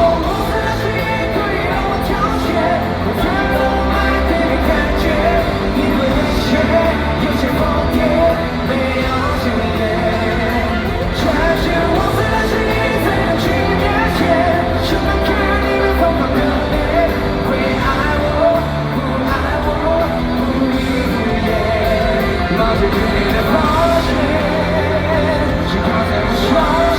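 Live pop-rock concert: a male lead vocal sung with wavering vibrato over a full band with drums and bass, recorded from the audience in a large hall.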